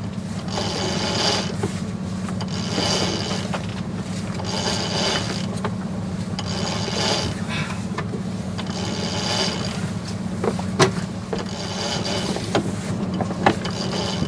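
Yacht sheet winch being cranked to haul out the genoa: repeated strokes about every two seconds, each a rattling run of ratchet-pawl clicks. A few sharp knocks come near the end.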